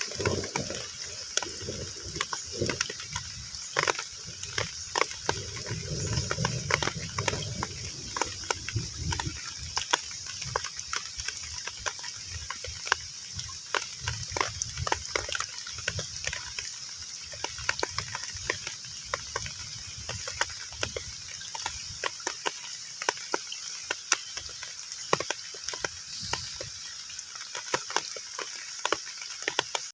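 Heavy rain falling on a pond surface: a dense, steady patter of drops over a continuous hiss. Some lower sound sits underneath during the first several seconds.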